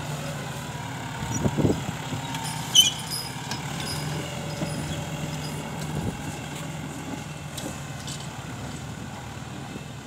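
Ford 7740 tractor's diesel engine running steadily under load while pulling a three-disc plough through hard, dry soil. Two sharp knocks stand out, one about a second and a half in and a louder one near three seconds.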